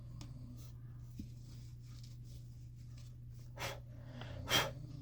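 Quiet room with a steady low hum, and two short breaths through the nose near the end, the second the louder.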